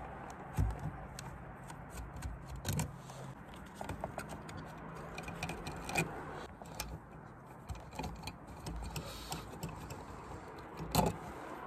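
Small clicks, ticks and light metallic rattles of hands working the wires and wire nuts loose from an outdoor metal electrical junction box, with a few sharper knocks against the old metal fixture. A faint low hum sits underneath for a couple of seconds near the start.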